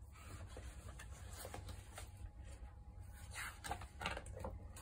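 Faint rustles and soft taps of a picture book's paper pages being handled and turned, over a low steady hum.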